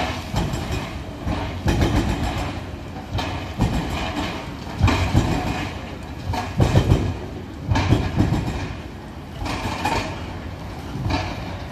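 Volvo excavator demolishing a concrete viaduct deck: irregular heavy crunches, clanks and scraping of concrete being broken, roughly one every second, over the machine's running engine.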